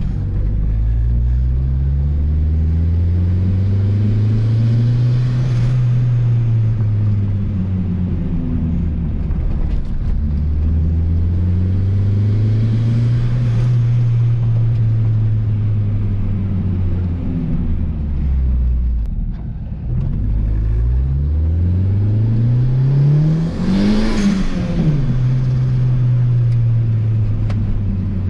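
Turbocharged Honda B18B1 four-cylinder engine of an Acura Integra heard from inside the cabin while driving. The engine note rises and falls in long sweeps three times; the last is a steeper climb that peaks about 24 seconds in and then drops sharply.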